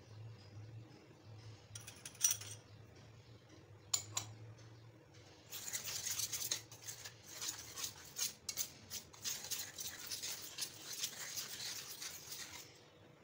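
Coil spring whisk with a wooden handle scratching and rattling through dry flour against a steel tray in quick strokes, starting about five seconds in and running for about seven seconds. Before that, a couple of sharp clinks.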